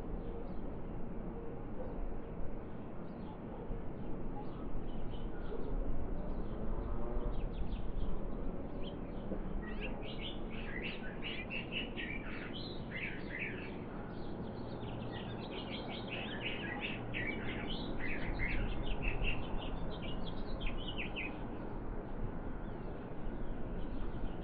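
Small birds chirping in a rapid chatter of short high notes, thickest from about ten seconds in until about twenty-one seconds, over a steady low rumble.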